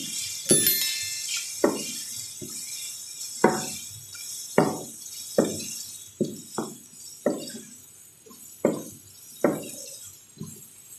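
Wooden spatula knocking against a nonstick frying pan as chicken strips and vegetables are stir-fried, with a sharp knock once or twice a second over a high sizzling hiss. The hiss and knocks grow fainter toward the end.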